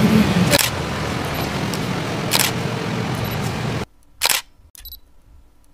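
Camera shutter clicks, three sharp ones about two seconds apart, over a low background noise that cuts out about four seconds in.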